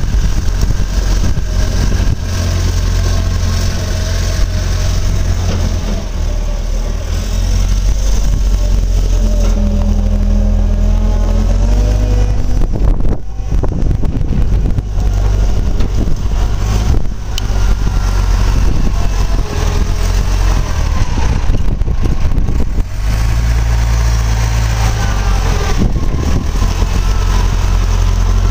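Volvo 4200 wheel loader's diesel engine running and being revved as the machine drives and works its raised bucket, the engine pitch rising and falling several times.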